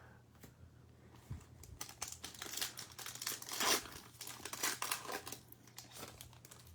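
Foil trading-card pack wrapper crinkling and being torn open, a dense run of crackles lasting a few seconds.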